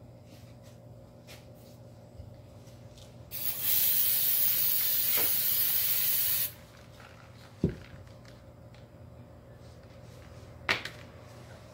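Aerosol can of CRC Brakleen brake cleaner spraying in one steady hiss of about three seconds, starting about three seconds in. Two short knocks follow a few seconds later.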